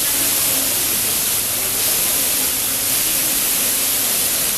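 Water cascading from a leaking station roof and splashing onto a flooded railway platform: a steady rushing splash. The roof drainage is failing under heavy rain.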